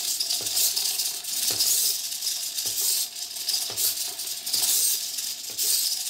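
Three small hobby servo motors in a 3D-printed robot finger whirring and rattling as the finger moves from pose to pose, in short bursts about once a second.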